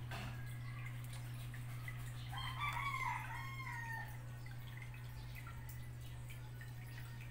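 Submersible aquarium filter pump humming steadily, with water trickling and dripping. About two seconds in, a bird calls once for about a second and a half, the loudest sound here.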